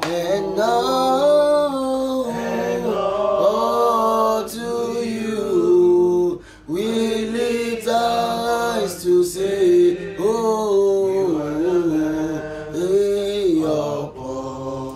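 A man singing a slow worship song, holding long notes that slide between pitches, with a short break about six and a half seconds in.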